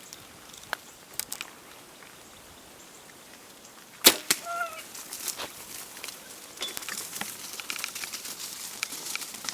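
A bow shot: a sharp snap of the string and arrow about four seconds in, followed at once by a brief squeal from the hog. Then a spell of crackling and rustling as hogs run off through dry brush and leaves.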